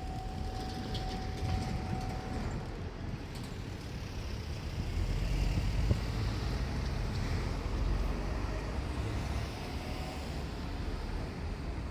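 Low engine rumble of a passing vehicle, growing louder about halfway through and easing off again. A thin steady tone fades out early on.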